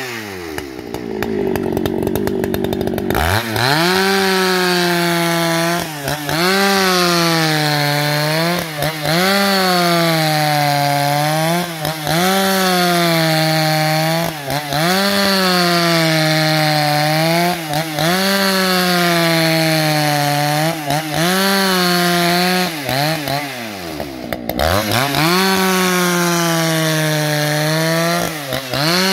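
Husqvarna 281 XP two-stroke chainsaw ripping lengthwise through a log at high revs, its pitch dipping and recovering every two to three seconds as the chain bites. Near the start the revs fall away and pick back up about three seconds in, and they drop and climb again briefly near the end.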